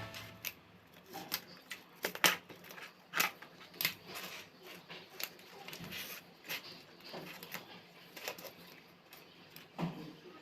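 Irregular light clicks and taps, a few a second with pauses between, with faint scraping, the sound of something being handled up close.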